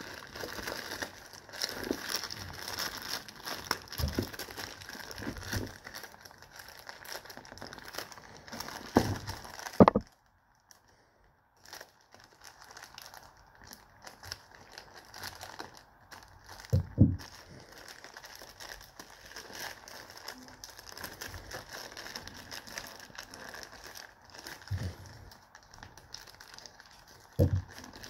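Plastic courier mailer bag crinkling and rustling as hands pull at its packing tape and cut it open with scissors, with a few dull knocks. The crinkling drops to near silence for about two seconds roughly a third of the way in.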